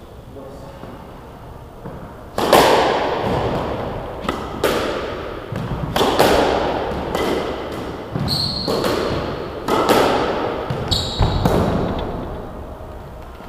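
Squash rally: the ball cracks off rackets and the front and side walls in quick succession, each hit echoing around the enclosed court, starting about two and a half seconds in. Two short high squeaks come in the middle and near the end.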